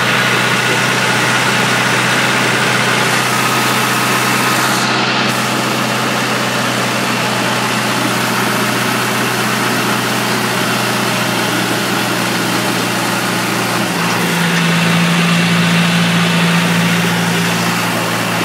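Old John Deere tractor engine running steadily under way, heard from the driver's seat; it grows a little louder for a few seconds near the end.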